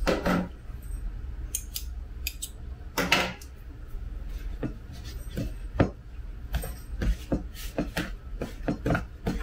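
Metal fork clicking and scraping against a plastic mixing bowl as it cuts butter into flour and brown sugar for a crumb topping. There are a couple of heavier scrapes early on, then quicker, regular taps in the second half.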